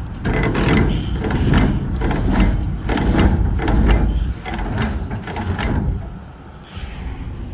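The hopper doors of an empty grain hopper trailer being cranked shut by hand. The gate mechanism clanks in repeated strokes, about one or two a second, and stops about six seconds in.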